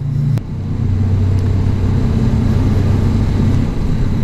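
A 2021 Honda CB500X's parallel-twin engine running steadily while the bike is ridden. After a click about half a second in, its note drops to a lower pitch and holds there.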